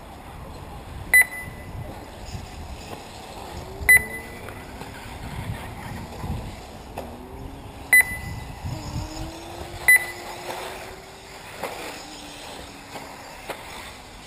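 Four short, high electronic beeps, about 1, 4, 8 and 10 seconds in, over the faint whine of 1/8-scale electric off-road RC buggies' motors rising and falling in pitch as they accelerate and brake.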